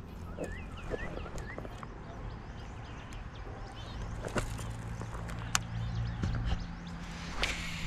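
Birds chirping: a few short rising calls in the first two seconds, over a low, steady hum, with scattered sharp clicks and a brief rush of noise near the end.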